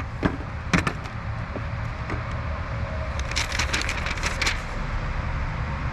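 Wind rumbling on the microphone, with a couple of sharp clicks in the first second and a quick run of clicking and rattling around the middle as loose parts are handled.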